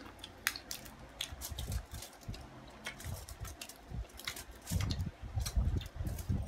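People chewing and biting into food, with many short sharp clicks and crunches scattered throughout and a few low thuds in the second half.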